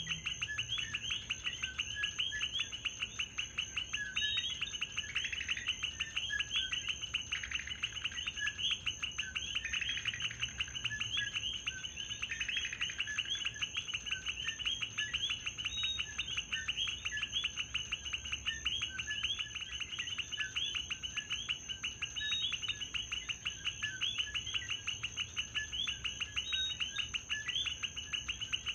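Chorus of coquí frogs calling over and over, many short rising two-note calls overlapping densely, with a steady high whine underneath.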